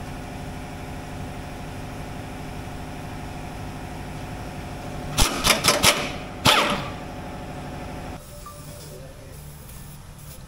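Pneumatic impact wrench hammering in two short bursts about five and six and a half seconds in, loosening the truck's cross-member bolts, over a steady machine hum that stops suddenly near the end.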